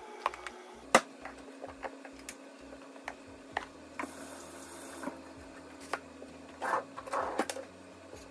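Kitchen work sounds: scattered clicks and knocks of food and utensils handled on a countertop and plastic cutting board, the sharpest knock about a second in, with a couple of short scraping or cutting strokes on the board near the end. A faint steady hum runs underneath.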